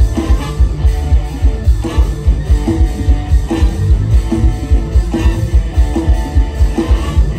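Loud Isan mor lam show music through a big stage PA: electric guitar over a fast, steady drum beat, with no singing.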